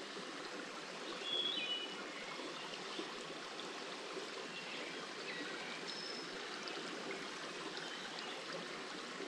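Small rocky mountain creek flowing, a steady soft rush of water. A few brief high-pitched chirps come through it about a second and a half in and again around six seconds.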